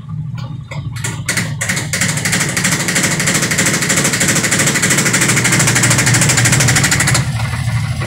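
Sharp automatic washing machine's spin tub spinning at speed on the spin-dry cycle with a loud, fast rattling clatter over a low hum. The clatter stops suddenly near the end, leaving the hum. The clattering is the very noisy spin the repairer puts down to a defective tub assembly.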